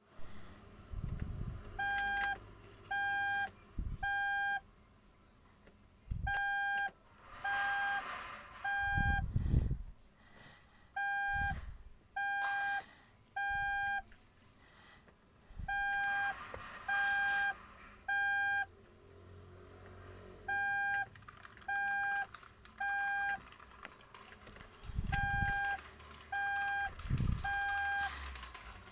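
Electronic alarm beeping a steady mid-pitched tone in groups of three half-second beeps, each group followed by a pause of a couple of seconds, over and over: the three-beep pattern of an emergency evacuation alarm. Irregular low thumps and rumbles come and go between and under the beeps.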